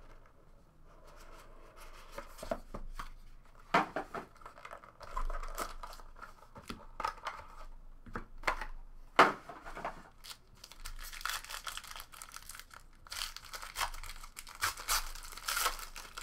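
The silver foil wrapper of a trading-card pack being torn open and crinkled, mixed with the knocks and rustles of the box and its insert being handled. A few sharp knocks stand out, and the crinkling is densest in the last few seconds.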